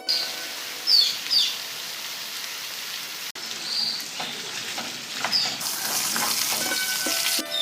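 Jackfruit chunks frying in oil in a cast iron skillet over high heat, a steady sizzle, with a few short high chirps or squeaks in the first couple of seconds and again about four and five seconds in. The sizzle drops out for an instant a little over three seconds in.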